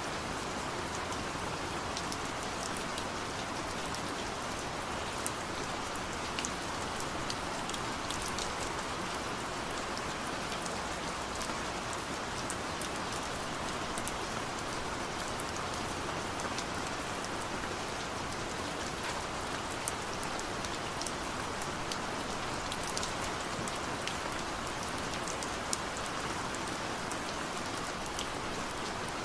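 Steady rain falling, an even hiss with scattered sharp ticks of individual drops hitting a surface.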